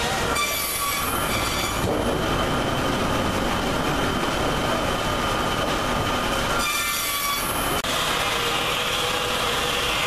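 Belt-driven sawmill machinery running steadily, with two shrill squealing bursts of about a second each, one just after the start and one about seven seconds in.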